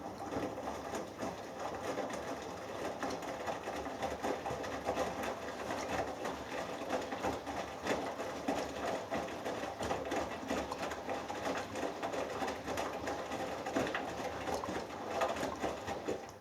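Hoover Dynamic Next washing machine drum turning a wet cotton load during the last rinse, with water sloshing and splashing. It starts suddenly and stops about sixteen seconds later.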